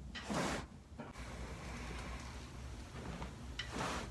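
A person breathing out hard twice: one breathy rush just after the start and another near the end, over a low steady hum. These are the paced exhalations cued to relax the body during chiropractic manipulation.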